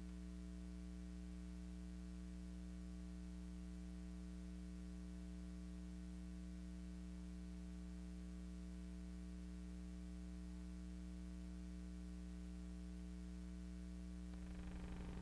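Steady electrical hum with a faint hiss and no other sound: the noise floor of a silent-film transfer. About fourteen seconds in the hiss grows slightly louder and rougher.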